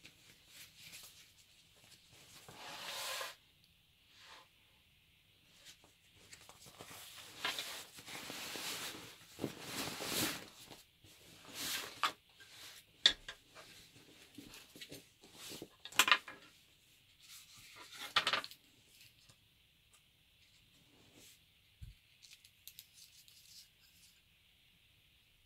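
Canvas bag fabric and wrapped contents rustling and rubbing in irregular bursts as they are handled and pulled out, with a few sharp clicks along the way. Small metal tins are handled quietly near the end.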